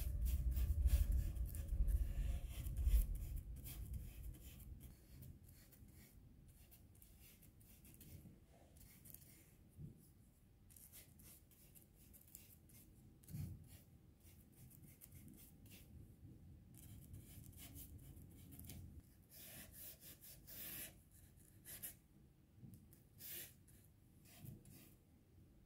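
Flat bristle brush dabbing and dragging oil paint across oil painting paper: faint, irregular scratchy strokes. A low rumble of handling is the loudest sound in the first few seconds.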